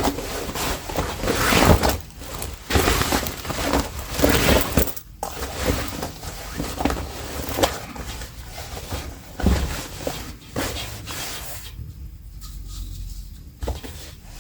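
Irregular clicks, knocks and rustles of sewing work being handled on a table, quieter for a moment near the end.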